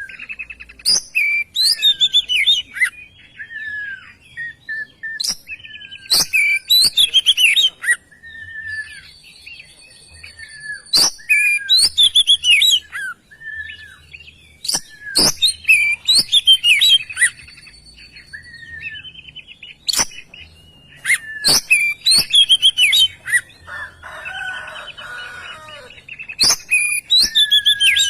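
Oriental magpie-robin (kacer) singing vigorously in loud bursts of varied whistles, quick chirps and sharp clicks, a burst every four or five seconds, with softer whistled notes between them and a harsher, scratchy passage near the end.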